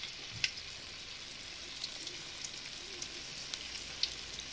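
Soya chunks coated in maida and cornflour batter deep-frying in hot oil: a steady sizzle with scattered crackling pops, one sharper pop about half a second in.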